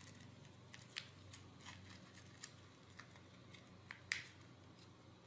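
Faint clicks and light handling of small metal screws and nuts being picked out of a small plastic parts bag, the sharpest click about four seconds in.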